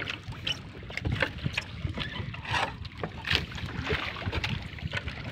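A fishing net being hauled aboard a wooden outrigger boat: scattered rustles, knocks and splashes over a steady low rumble of wind and sea.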